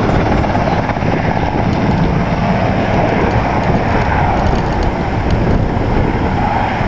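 Firefighting helicopter flying low nearby, its rotor and engine noise a steady, loud rumble.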